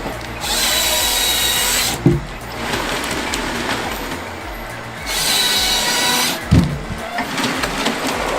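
Harvester head's chain saw cutting through a log twice, each cut about a second and a half long with a high whine, and each ending in a sharp thud. Background music plays throughout.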